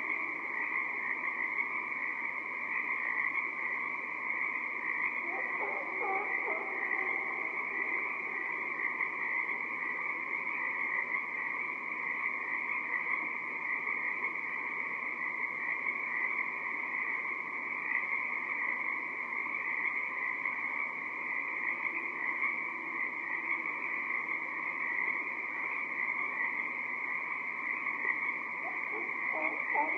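Dense chorus of Pacific tree frogs calling continuously, a steady high massed trilling. A few lower, pitched calls from another animal stand out about six seconds in and again near the end.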